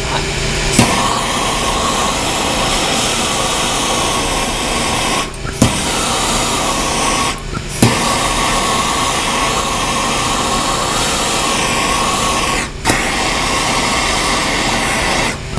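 Hand-held gas torch hissing steadily as its flame heats a copper pipe fitting for soldering. The flame cuts out for a moment about three times and each time comes back with a sharp click.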